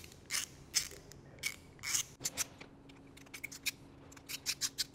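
Allen key turning out the end-cap screws of a pneumatic solenoid control valve: a run of short, crisp metal scraping ticks at an uneven pace, coming faster near the end.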